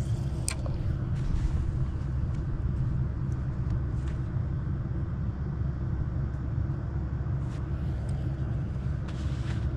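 Steady low rumble of wind buffeting the microphone, with a few light clicks from handling a spinning rod and reel, the sharpest about half a second in.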